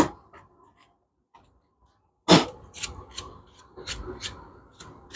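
Hand work on motorcycle parts: a sharp knock, then another about two seconds in, followed by a run of lighter clicks and ticks.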